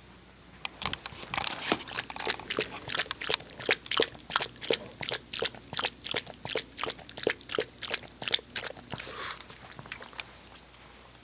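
Shih Tzu eating or drinking, its mouth making a quick, fairly even run of clicks, about three or four a second, that stops a little before the end.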